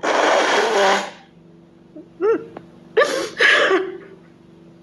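A woman blows her nose hard into a cloth for about a second while crying, then sobs in short, breaking cries about two and three seconds in.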